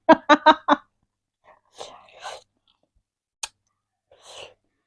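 A few quick voiced syllables at the start, then three short breathy sounds from a person and one sharp click about three and a half seconds in.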